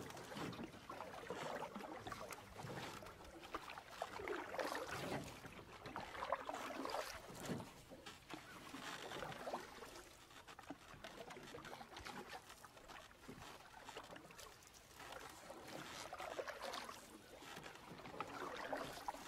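Canoe paddle strokes in the water, with water splashing and trickling off the paddle in irregular swells every few seconds.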